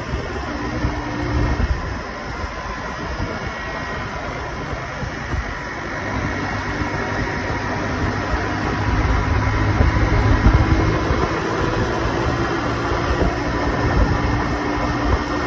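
Honda street motorcycle running at cruising speed, engine and wind noise heard from the rider's seat, steady and growing somewhat louder in the second half.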